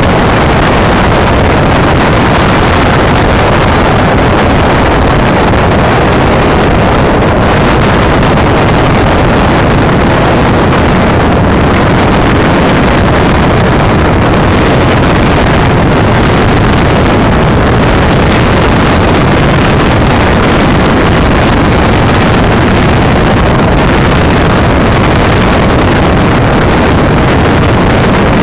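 Loud, steady rush of wind on the microphone and rolling noise from a Greenpower electric race car driving at speed on tarmac.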